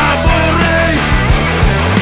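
Loud rock music: drums keeping a steady beat under bass and electric guitars.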